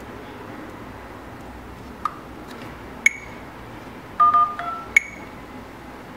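Smartphone dialer keypad tones from a Haipai noble X3s: a few short sharp beeps and, about four seconds in, two quick two-note dial tones as digits are tapped in on the touchscreen keypad.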